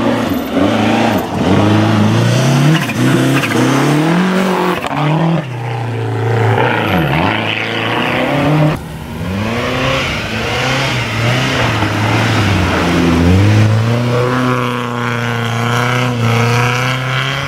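Rally car engines driven hard on a snowy stage, revving up and dropping back again and again through gear changes and lifts. One car's run ends with a sudden cut about nine seconds in, and another car is heard revving after it.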